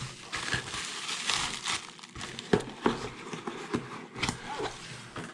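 Packaging crinkling and rustling as parts are handled, with scattered light clicks and knocks.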